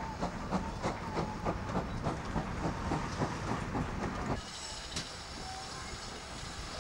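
Steam locomotive No. 5029, a GWR Castle Class 4-6-0, hissing with steam and a rapid regular ticking of about three ticks a second. About four and a half seconds in, the sound cuts to a quieter, steady outdoor background with a single click.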